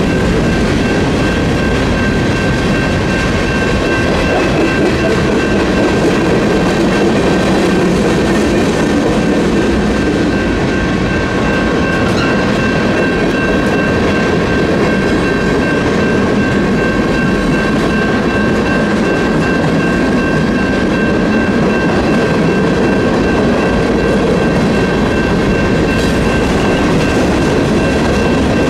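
Freight train of mixed tank cars, hoppers, flatcars and boxcars rolling steadily through a grade crossing, its wheels running loud on the rails. Over it the crossing's NEG electronic bell keeps ringing in steady high tones.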